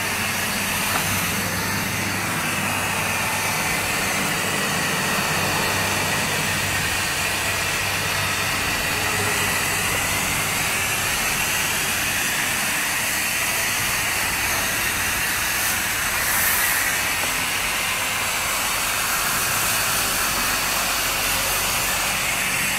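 Pump-fed hose spray nozzle hissing steadily as it sprays a fine mist of fertiliser solution, its pitch wavering slightly as the spray moves.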